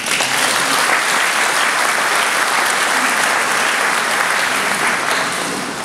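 Concert audience applauding, the clapping dying away near the end.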